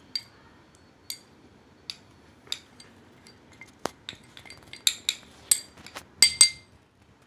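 A spoon knocking and tapping against a small bowl while cocoa powder is spooned out into a larger bowl: irregular light clinks, the loudest ones coming in a cluster about five to six and a half seconds in.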